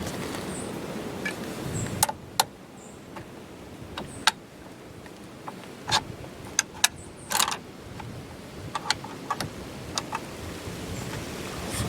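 Sharp metallic clicks and clacks, about a dozen spread irregularly, from a hunting rifle being handled, over a low steady hiss.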